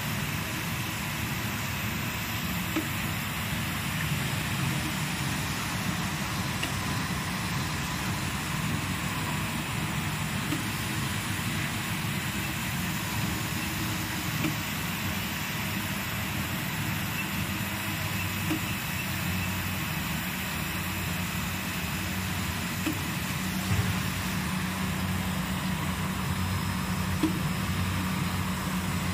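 Plastic tube extrusion line running: a steady low machine hum with a faint high whine over it and a few light ticks.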